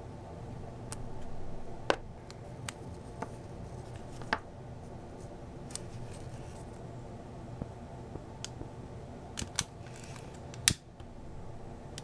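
Scattered small snips and clicks from small scissors cutting a piece of heat-shrink tubing and fitting it over a ribbon HDMI cable's connector, over a low steady hum. Near the end a louder sharp click as a lighter is struck.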